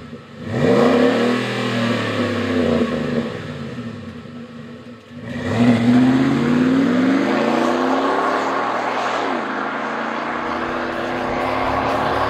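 Ford F-150 V8 heard through a Flowmaster Force II single-outlet cat-back exhaust. It revs up about half a second in and settles back, then accelerates away about five seconds in, the pitch climbing and dropping again before a steadier exhaust drone.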